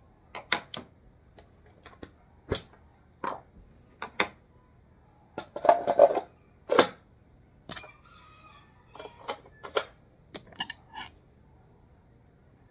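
Irregular clicks, knocks and rattles of AR-7 rifle parts being handled and fitted into the rifle's hollow plastic buttstock: the receiver goes into the stock, then the steel barrel slides in. The loudest knocks come in a cluster about halfway through.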